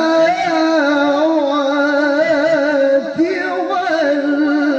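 A male qari reciting the Quran in melodic tilawah style through a microphone, holding a long high note with a fast wavering vibrato and ornaments. About three seconds in, the pitch dips briefly and swoops back up.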